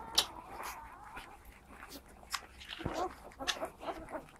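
Three-day-old boxer puppies squeaking and shuffling as they nurse in a pile against their mother, with scattered short clicks and rustles.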